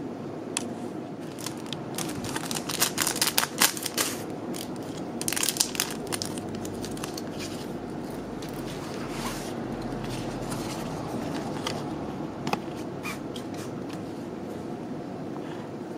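Clear plastic packaging crinkling and crackling as it is handled and opened, with sharp bursts of crackles in the first six seconds, then quieter rustling and a few clicks as the folded nylon repair sheet and its backing paper are unfolded, over a steady low background hum.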